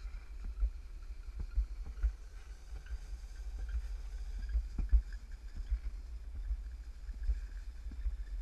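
Alpine slide sled running down its track: a steady low rumble with irregular knocks and bumps, the loudest about five seconds in.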